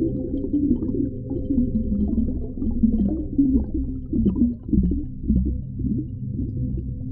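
Underwater ocean ambience, muffled and all low-pitched: a steady deep rumble with held droning tones. About four to six seconds in comes a run of short low sounds that slide in pitch.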